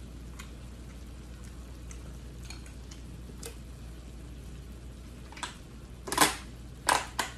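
Drinking water from a plastic bottle: after a few seconds of faint clicks over a low room hum, three loud gulps come in quick succession in the last second and a half.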